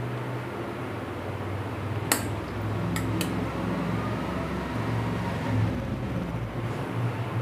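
Steel ladle clinking against the pot and plate while yogurt is spooned over dahi vadas: one sharp clink about two seconds in and two more in quick succession a second later. A steady low hum underneath.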